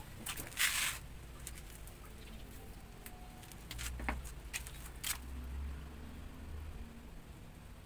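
Wires and plastic connectors of a motorcycle wiring harness being handled and twisted by hand: a short scratchy rustle near the start, then scattered small clicks and ticks.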